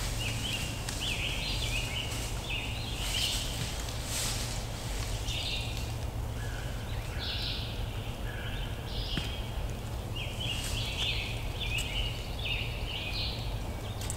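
Songbirds singing short, repeated phrases over a steady low rumble, with a few brief rustles in dry leaf litter.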